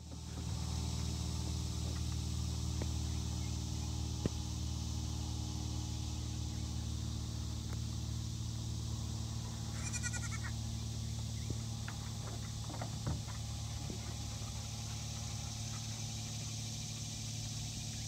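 Steady outdoor background of a low, even hum and a high, even hiss, with one short, bleat-like animal call about ten seconds in.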